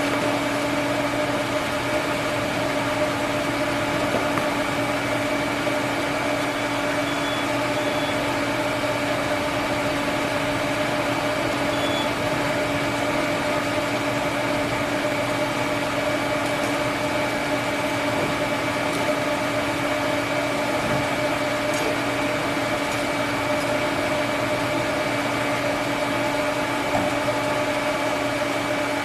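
TIG welding arc on cast iron: a steady hiss with a constant hum running through it, held without a break.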